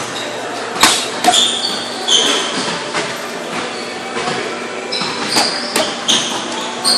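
Boxing gloves smacking into focus mitts, a series of sharp smacks at irregular intervals, with short high squeaks between the punches.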